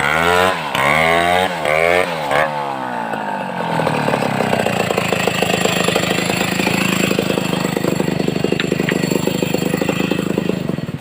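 Two-stroke chainsaw engine blipped several times, its pitch rising and falling quickly, then dropping back and settling into a steady idle.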